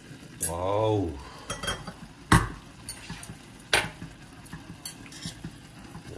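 Metal chopsticks clinking against a stainless steel pot while stirring ramyeon noodles: a few sharp clinks, the loudest about two seconds in. A brief voice sound comes about half a second in.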